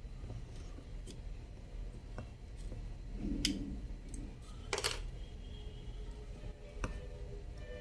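A few faint clicks and taps from small tools and parts being handled, over a low steady hum.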